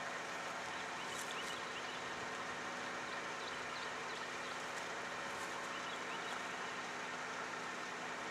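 Steady, distant drone of an approaching Union Pacific SD90MAC diesel locomotive leading its train, with a few faint high chirps in the middle.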